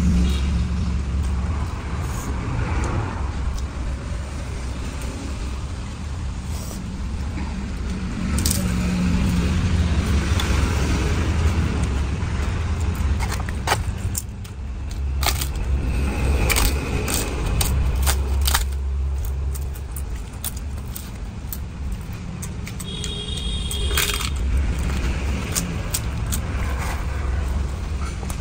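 Papads crackling and snapping as they are broken while eating by hand from a steel plate: clusters of sharp crackles in the middle and once more near the end, over a steady low rumble.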